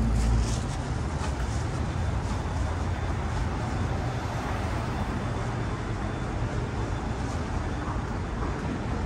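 City street traffic: a steady low rumble of passing cars, louder for the first half second, then settling to an even, quieter level.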